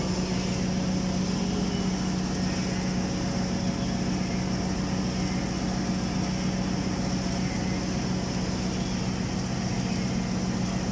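Automatic girth welding machine running a submerged-arc weld, giving a steady machine hum with a constant low tone and a faint high hiss.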